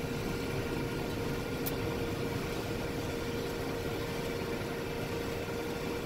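Combine harvester running steadily while cutting soybeans, heard from inside the cab: an even machinery drone with one steady high hum.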